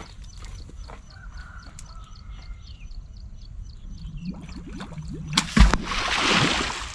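A heavy splash in a small muddy pond: a sharp slap of water about five seconds in, then about a second and a half of spraying, splashing water.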